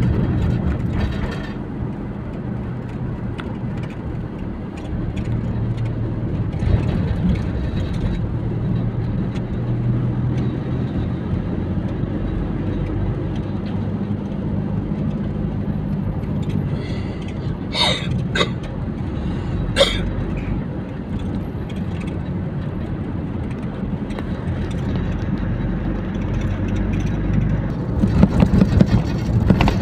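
Car engine and road noise heard from a moving car in city traffic, a steady low hum. A few sharp clicks a little past halfway, and a louder rumble near the end.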